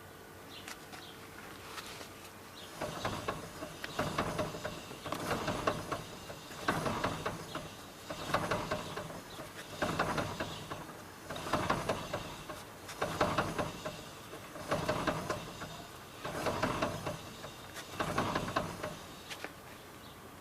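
Knocking from the left front wheel of a Renault Logan as the wheel is rotated in place: a cluster of knocks recurs about every 1.6 seconds, roughly ten times, starting about three seconds in. It is an extraneous knock, the sign of a fault at that wheel.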